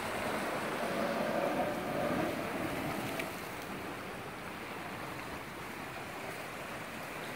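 Seawater surging and washing through the rock pools and channels around a blowhole, louder over the first few seconds and then easing to a steady rush.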